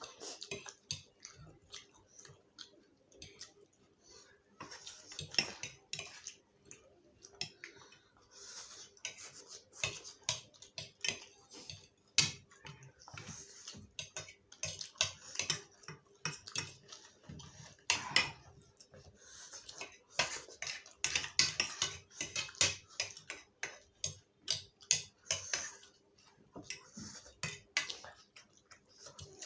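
Spicy instant noodles being eaten: chewing and eating noises with cutlery clicking against a dish, in many short, irregular clicks.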